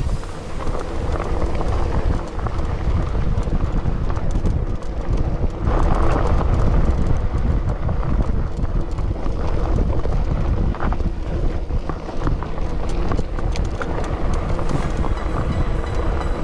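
Mountain bike riding fast over rocky dirt singletrack: a steady stream of knocks and rattles from the bike over a low rumble of tyres on the trail.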